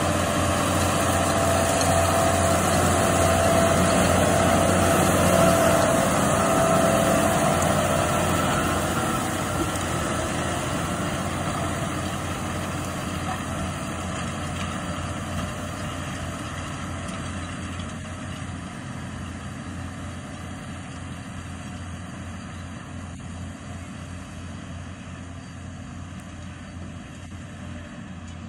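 Case IH Quadtrac 470 tracked tractor running under load as it pulls a Väderstad CrossCutter disc cultivator through stubble, a steady low engine drone with a rushing noise from the working machine. It is loudest about five seconds in as it passes, then fades steadily as it moves away.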